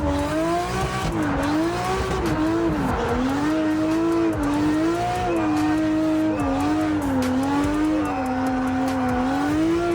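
Drift car's engine revving high under hard throttle, its pitch swinging up and down every second or so as the throttle is worked through a slide.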